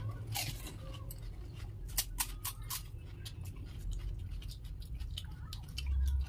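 Crisp, hollow fuchka (golgappa) puri shells crackling as they are poked open with a thumb and crunched while eating: a string of sharp little cracks, with a low thump near the end.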